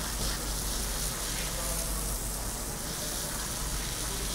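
Waterjet cutting machine hissing steadily as its high-pressure water jet sprays over a metal sheet.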